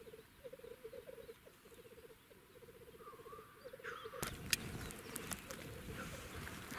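Black grouse cocks on the lek, their low, fast bubbling song repeated in phrases. About four seconds in the bubbling gives way to close rustling with a sharp click.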